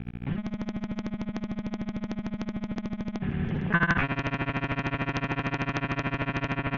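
Trike ultralight's engine and propeller drone heard through the headset intercom as a buzzy, rapidly pulsing tone, which shifts to a lower, fuller pitch about four seconds in.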